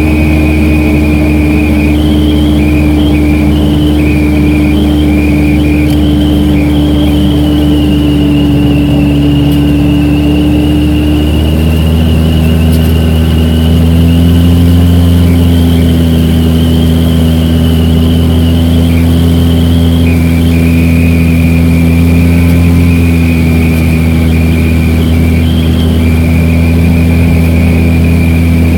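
A vehicle driving, heard from inside the cabin: steady engine and road noise, with a thin high whine over it that jumps between two pitches. The engine note steps down a little about twelve seconds in.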